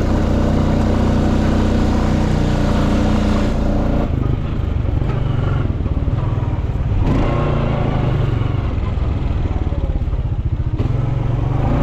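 Quad bike engine running while riding, its note shifting a few times as the throttle changes.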